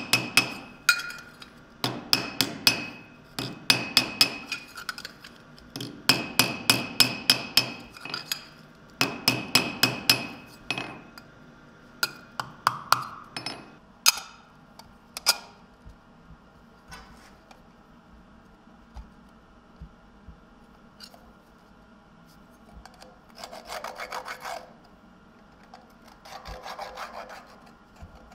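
Hand hammer striking sheet steel on an anvil in quick runs of ringing blows, several runs in the first ten seconds or so, then a few scattered single blows. Near the end come two short bursts of scraping as the small steel box is rubbed against the bench.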